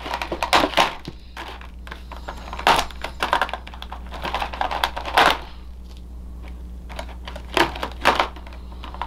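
Action-figure plastic packaging being cut open and handled: irregular snips, clicks and crinkles of the plastic tray, with a few sharper clacks, the loudest about five seconds in.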